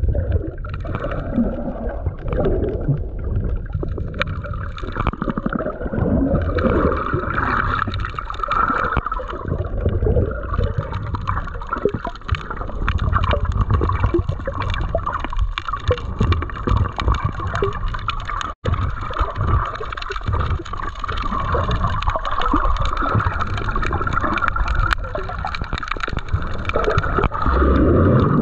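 Muffled underwater sound through a GoPro's waterproof housing: water moving and gurgling around the submerged camera. It drops out for an instant about two-thirds of the way through.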